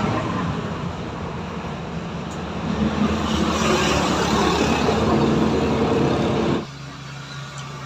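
A motor or engine running with a steady low hum, louder at the start and stopping abruptly near the end.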